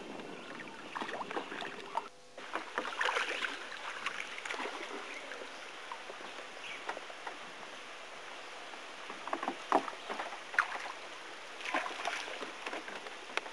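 Water lapping and splashing against a raft moving down a fast river, with scattered short splashes and knocks throughout.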